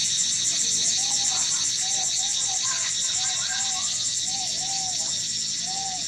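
Dense, steady, high-pitched insect drone with a fast pulsing flutter. From about a second in, short rising-and-falling squeaky calls repeat, often in pairs, fainter than the drone.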